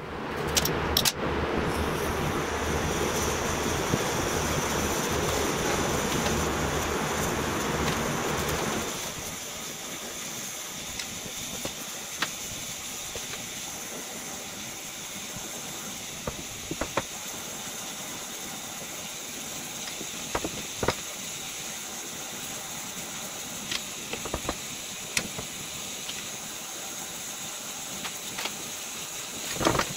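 Gas torch flame hissing steadily while it heats a steel shift arm for bending, with a few small clicks and ticks. The first nine seconds or so are louder and rougher before the sound settles to a quieter steady hiss.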